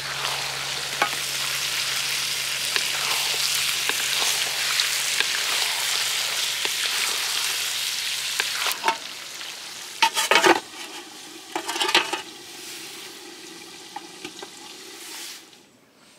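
Food frying and sizzling in a hot pan, steady for the first nine seconds or so, then quieter. A few knocks and clatters come around ten to twelve seconds in, and the sizzle dies away near the end.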